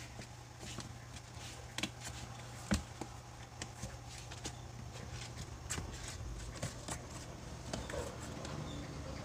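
A small kitten's paws tapping and scratching on a cardboard box and blanket: scattered light taps and rustles, with one sharper knock a little under three seconds in, over a steady low hum.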